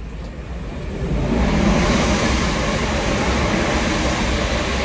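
A train going past a station platform: a loud, even rushing rumble that swells about a second in and holds.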